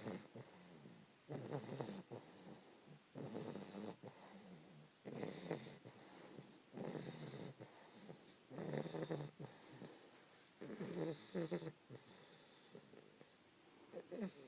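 A 3-month-old English Bulldog puppy snoring in her sleep: a rough snore about every two seconds, with fainter breathing between.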